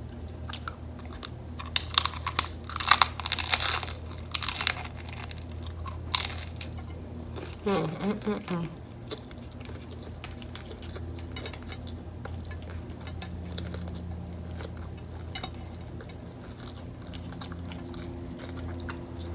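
Close-miked bite into a crunchy hard-shell taco: a run of loud crackling crunches about two to five seconds in, a few more shortly after, then quieter chewing.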